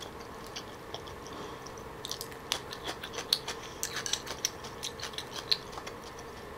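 Close-miked mouth sounds of chewing soft, fatty raw salmon belly: wet clicks and smacks coming thicker from about two seconds in. Chopsticks give light taps as they pick at the plate.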